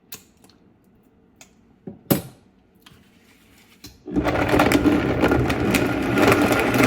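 A few light knocks and clicks of the blender jar being readied, then about four seconds in a countertop blender switches on and runs steadily at full speed, blending a protein smoothie with ice.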